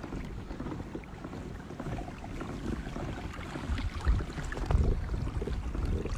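Wind rumbling on the microphone on a kayak, swelling in gusts near the end, with small water splashes and knocks around the boat.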